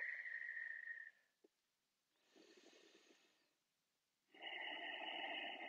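Slow, audible human breathing: a long breathy exhale fading out about a second in, a fainter inhale around the middle, and another long exhale starting near the end.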